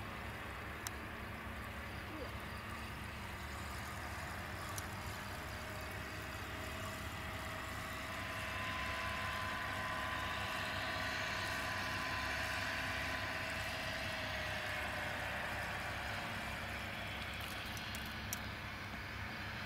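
A distant engine drone that grows louder about halfway through and fades again, over a steady low hum.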